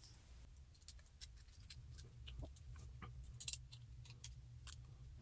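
Faint, scattered clicks and light taps of small parts being handled: a carbon fiber tube and small metal rod-end pieces. The loudest click comes about three and a half seconds in, over a low steady hum.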